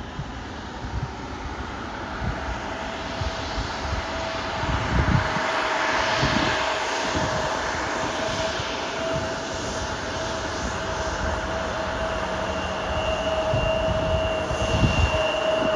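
Embraer E175 regional jet's twin turbofan engines whining at taxi power, growing louder as it rolls closer. A steady whine holds throughout, a higher second whine joins near the end, and irregular low gusts of wind buffet the microphone.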